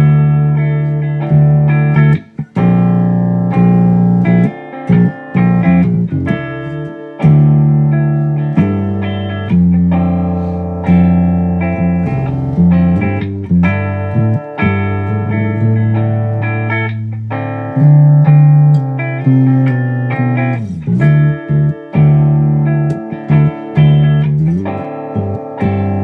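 Electric guitar playing a slow post-rock jam: ringing chords and low notes struck every second or two, each left to sustain and fade.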